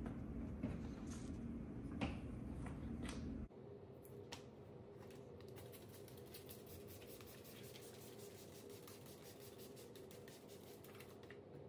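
Faint handling noises: a couple of light clicks and some rubbing as a polishing disc is fitted to the drill's backing pad. A few seconds in the background drops suddenly to a faint hum.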